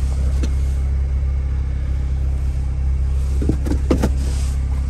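Steady low hum of the Toyota Carina's 2.0 L 2C-T turbo-diesel idling. A few short rustles and knocks come about three and a half to four seconds in, as the trunk floor board and carpet are handled.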